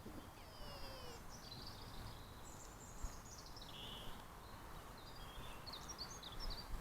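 Wild birds singing and chirping over a steady outdoor hiss: a falling series of chirps in the first second, a trill around the middle and more scattered chirps near the end.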